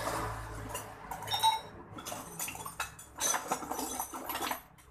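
Metal hand tools clinking and rattling against each other as they are rummaged through in a wooden toolbox, in short irregular clatters. There is a brief squeak about a second and a half in.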